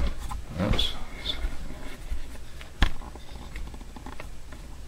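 Half-built hollow wooden guitar body being lifted and turned over by hand: soft rubbing and bumping against hands and bench, with one sharp knock about three seconds in, over a low steady hum.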